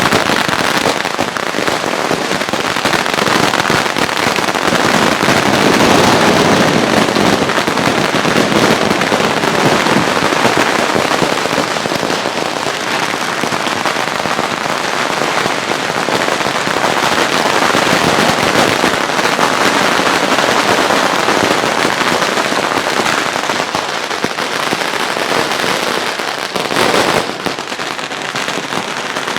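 Fireworks going off in a dense, continuous barrage of rapid bangs and crackling, with a brief louder burst near the end before it thins out.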